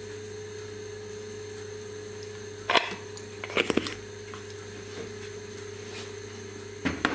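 Sharp knocks and clicks of things being handled by hand next to a grill pan on the stove: one a bit under three seconds in and a quick cluster around three and a half to four seconds, over a steady low hum.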